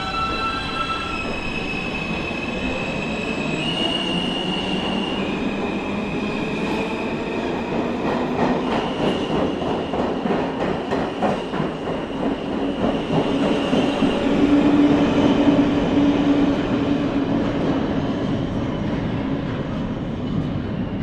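New York City Subway E train pulling out and running at speed. The electric traction motors whine in steady tones that step to a new pitch every second or two as the train accelerates. From about 8 seconds in, the wheels clatter rapidly over the rails, and a steady wheel squeal joins in about halfway through.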